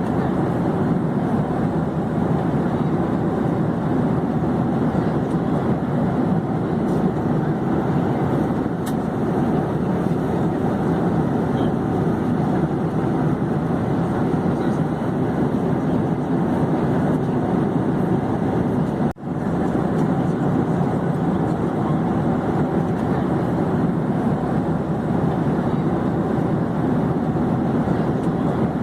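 Steady drone of an airplane in flight, an even rushing noise with no change in pitch, cutting out for an instant about two-thirds of the way through.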